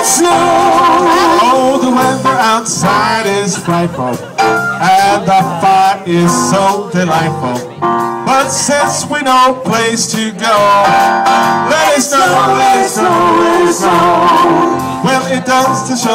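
Live band playing a song, with a singer over guitar and other instruments.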